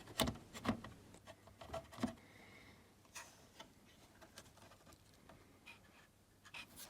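Faint clicks and light taps of small plastic and metal parts being handled inside an oscilloscope during reassembly, a few sharper clicks in the first two seconds and another at the end.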